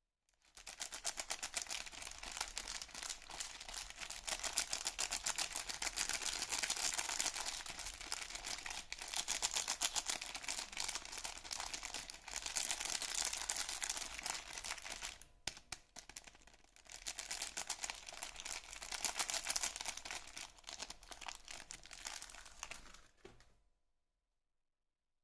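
Soap packaging crinkling and rustling as it is handled and unwrapped close up: a dense, crisp crackle with a short lull about fifteen seconds in. It stops about a second and a half before the end.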